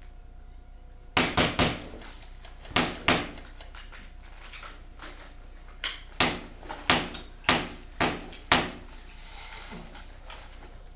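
Airsoft gun firing single shots: three sharp cracks in quick succession about a second in, two more near three seconds, then a string of about six spaced shots a few seconds later.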